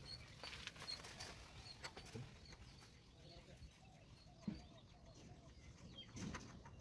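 Near silence with faint metal clicks and one light knock about four and a half seconds in, as a bicycle hub is opened to take out its bearing balls.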